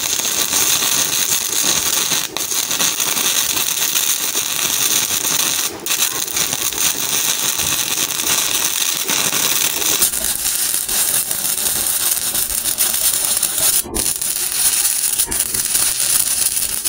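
E6011 stick-welding arc crackling and sizzling steadily at about 80 amps while a vertical root pass is run on steel plate. The crackle breaks off briefly three times, about 2, 6 and 14 seconds in.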